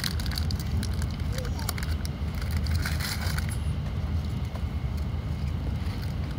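Foil snack wrapper crinkling and crackling as it is torn open and handled, heaviest in the first three and a half seconds and then fading. Under it runs the steady low rumble of a Shinkansen train in motion.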